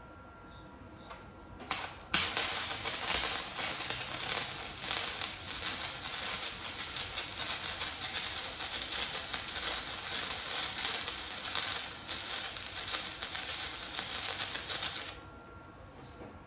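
Welding arc of a small Chicago Electric hobby welder crackling on 16-gauge steel square tubing. A brief spurt of arc comes about a second and a half in, then a steady crackling bead runs for about thirteen seconds and stops suddenly.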